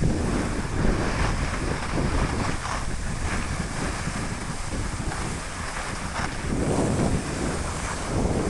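Wind rushing over the microphone of a handheld camera during a ski run, with skis scraping and hissing over tracked, bumpy snow, the noise rising and falling a little.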